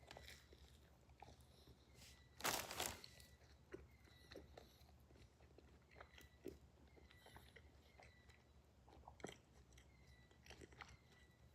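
Faint close-up chewing of an untoasted Subway sandwich: soft mouth clicks and small crunches, with a louder bite about two and a half seconds in.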